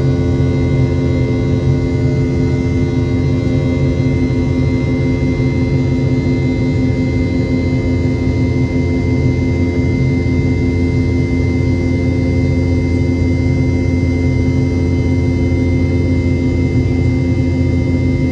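Boeing 717's Rolls-Royce BR715 turbofan engines running at takeoff thrust with a steady buzz: many droning tones held at a constant pitch over a low rumble.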